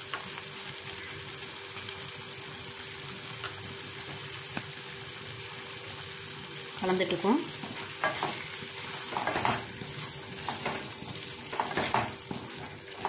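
Mushroom chukka sizzling in a steel kadai with a steady hiss, the gravy cooked nearly dry so the masala is frying. In the second half a spatula stirs and scrapes through the pan in a run of short strokes.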